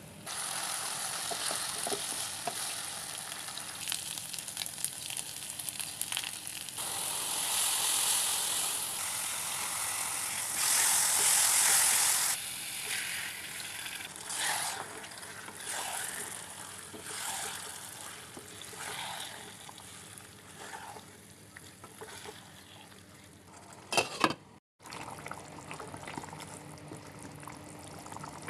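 Duck meat frying and sizzling in a pan, stirred now and then. The sizzle swells loudest about eight and eleven seconds in, then comes in shorter pulses and fades, with two sharp knocks near the end.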